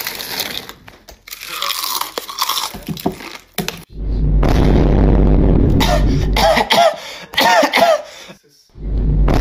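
A plastic snack bag crinkling as a hand digs into it. Then, about four seconds in, a loud low hum with a few short high-pitched sounds that rise and fall.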